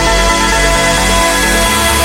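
Electronic dance music with a deep bass line and sustained synth tones, a rising noise sweep building through the high end.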